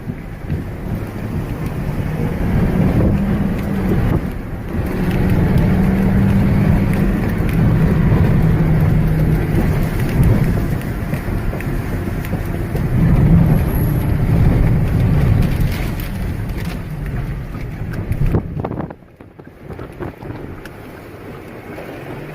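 Storm wind and rain rumbling loudly over the microphone, with a steady low vehicle hum underneath; the noise drops off sharply near the end.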